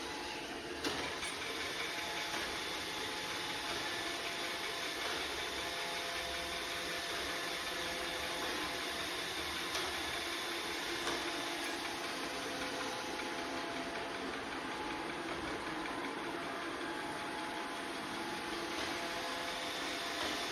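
Robot vacuum running steadily: an even motor and suction hum with a faint high whine, and a small click about a second in.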